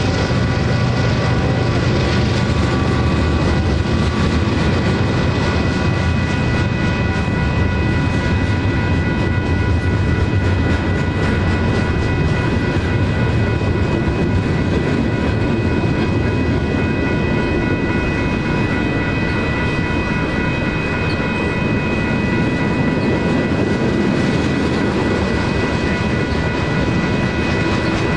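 Freight cars of a manifest train rolling steadily past a grade crossing, a continuous rumble of wheels on rail. Over it, the crossing's two electronic bells (a WCH Type 1.5 E-Bell and an NEG E-Bell) ring without pause.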